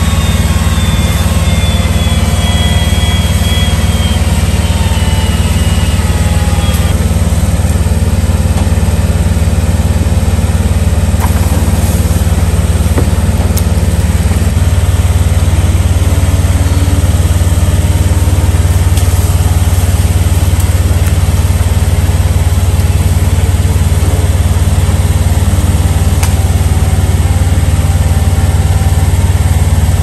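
A combustion engine running steadily at a constant low speed, with no revving. A faint high whine slowly falls in pitch over the first several seconds.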